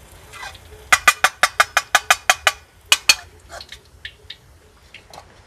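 A metal skimmer is tapped rapidly against the wok to shake oil off fried tempeh. About a dozen sharp metallic clinks, some eight a second, come about a second in, then two more and a few fainter ticks.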